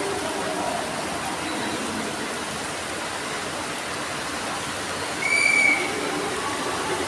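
Rain falling steadily on shallow floodwater, a continuous hiss. About five seconds in, a short, high, steady tone sounds over it for about half a second.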